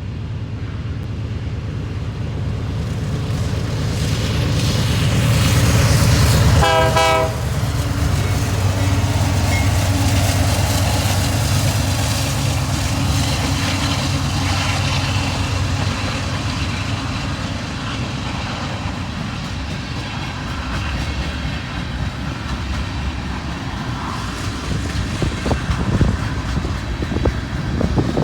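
Canadian Pacific diesel freight locomotives rumbling louder as they approach, with one short horn blast about six and a half seconds in. The freight cars then roll by with a steady rumble, and the wheels click over rail joints near the end.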